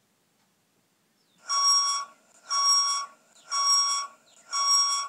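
Loud electronic beeping with a steady pitch, in the manner of an alarm: beeps of about half a second each, roughly one per second, starting about a second and a half in.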